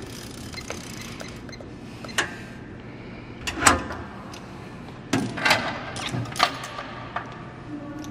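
Scattered clicks and metal knocks from the ATM's steel safe as its vault handle is worked and the door opened, over a steady background hum.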